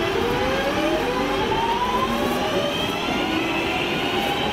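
A train accelerating, its drive giving a whine made of several tones that rise steadily in pitch as it gathers speed.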